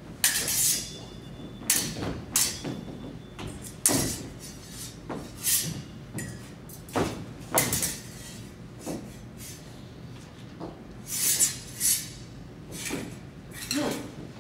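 Stage swords clashing in a fast, irregular series of about twenty sharp metallic clangs, some with a brief ring.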